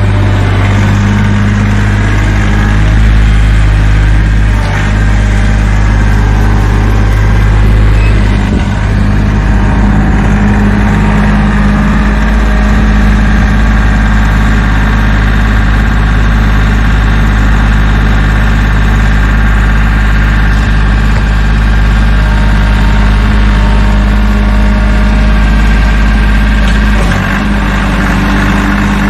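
Kioti CK3510 SE compact tractor's three-cylinder diesel engine running steadily at working speed. It drives a rear-mounted Bush Hog RT72G rotary tiller through the PTO while the tiller churns the soil. The level dips briefly near the end.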